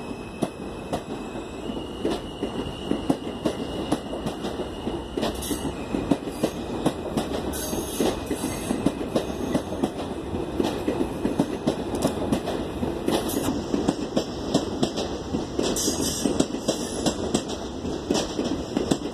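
R32 subway train running on the express track, its wheels clattering over rail joints and switches in a steady stream of clicks. A few short high squeals from the wheels cut through now and then.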